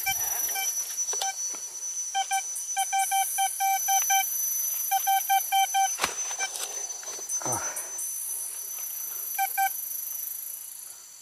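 A Vista Gold metal detector gives bursts of short, mid-pitched beeps, about five a second, as its coil passes over the dug hole, signalling a buried metal target there. The last short pair comes near the end. A steady high insect drone runs underneath.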